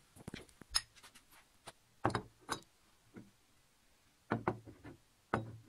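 Glass tumblers of water being set down one after another on a table: several short, separate knocks.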